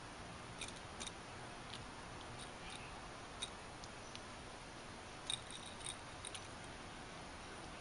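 Light metallic clicks and rattles, irregular and a few at a time, from a coiled wire spring toy on a carpeted base as a kitten bats and bites at it; a small cluster comes a little past halfway. A steady faint hiss lies underneath.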